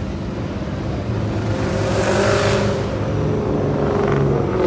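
Car engine and exhaust running, with one car driving past and its sound swelling to a peak about two and a half seconds in, then easing off.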